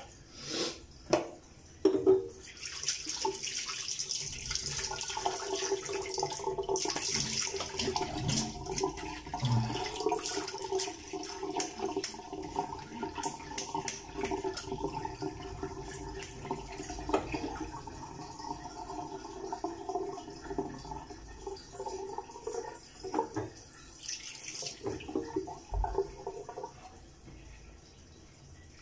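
Bathroom tap running into a sink, with splashing as water is used, and a steady hum under it for most of the time. There are a few sharp knocks about a second or two in.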